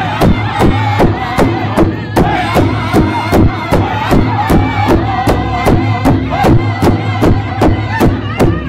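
Powwow drum group: several men strike one large hide-covered drum together in a steady beat of about three strokes a second while singing in high, wavering voices.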